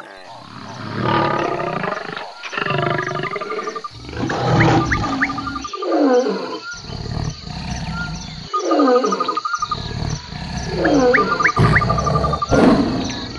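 Lions roaring: a run of deep, loud calls repeated every second or two, several sliding down in pitch at the end.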